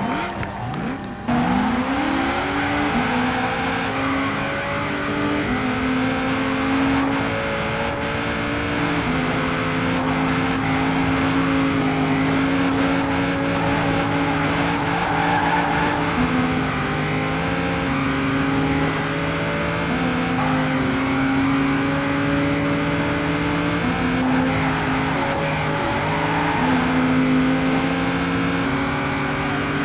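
Race-car engine sound that swells up with a rising rev about a second in, then runs on steadily, its pitch stepping up and down.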